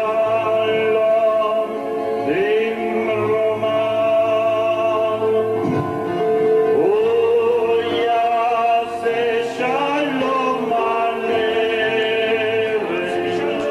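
A man singing into a microphone over electronic keyboard accompaniment. He holds long notes with vibrato and slides up into several of them, about two, six and nine seconds in.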